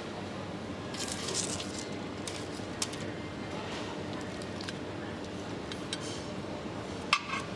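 Metal chopsticks scraping and clinking against a stainless steel bowl, with a few sharp clicks and one louder ringing clink near the end, over a steady background hum.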